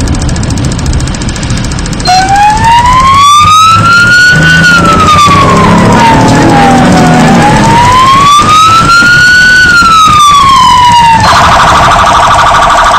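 Fire apparatus electronic siren switched on about two seconds in, heard loud from inside the responding vehicle. It runs a slow wail, rising and falling twice, then switches near the end to a fast yelp.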